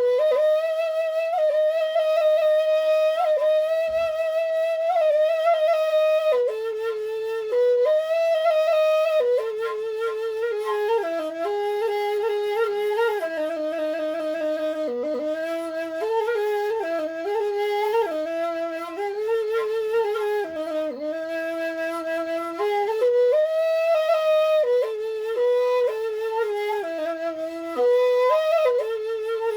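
A Balinese bamboo suling (flute) plays a solo melody, one line with wavering vibrato that moves between high and low notes with hardly a break.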